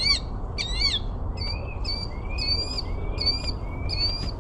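Northern cardinal singing: two long slurred whistles, then a run of about six short repeated whistles, roughly two a second.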